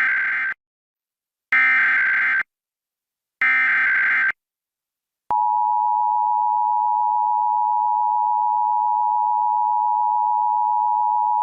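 Emergency Alert System broadcast: the three short SAME header data bursts, a harsh digital screech each time, followed a second or so later by the steady two-tone EAS attention signal (853 and 960 Hz sounded together). The sequence opens a Required Monthly Test.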